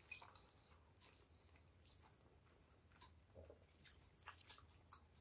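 Near silence: faint soft squishes and clicks of fingers mixing rice and curry on a plate, with chewing, over a steady rapid high-pitched ticking.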